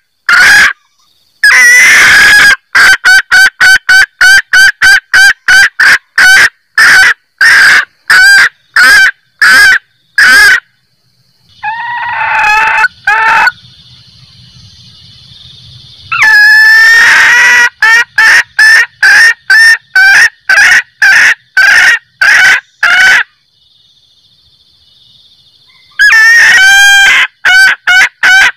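Female junglefowl cackling. Runs of short clucking calls come at about two a second, broken by longer, harsher cackles near the start, about halfway and near the end, with a few brief pauses. It is the hen's call that draws in males.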